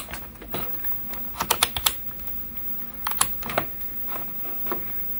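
A handheld digital multimeter's rotary selector being turned. Its detents give two quick runs of several plastic clicks, about a second and a half in and about three seconds in, followed by a couple of single clicks.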